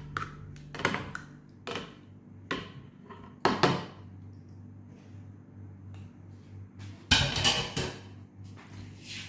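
Kitchen dishes and utensils clinking and knocking: a handful of separate short clinks, then a longer, louder clatter about seven seconds in.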